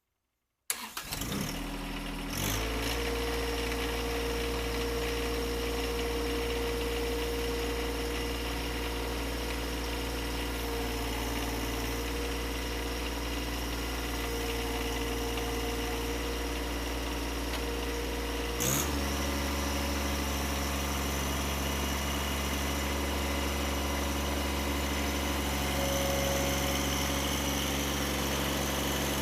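An engine running steadily at about idle speed, cutting in abruptly about a second in. There is a knock shortly after, and a second knock near the middle where the engine's note shifts lower and stays there.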